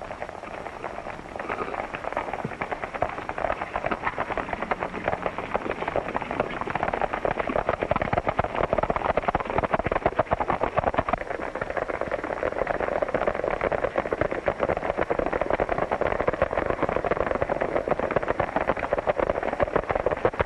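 Hoofbeats of a group of horses galloping, a dense rapid drumming that grows louder a few seconds in.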